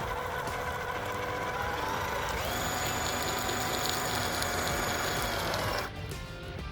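Small electric motor of an MN128 RC off-road truck whining under throttle; its pitch climbs about two and a half seconds in, holds, then winds down and stops near the end. Background music plays along with it.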